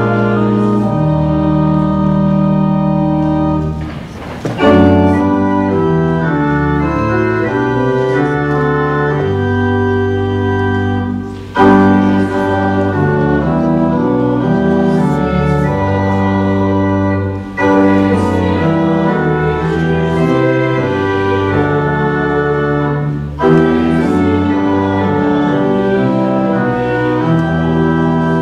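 Church organ playing full held chords in phrases about six seconds long. Each phrase ends in a brief break before the next loud chord.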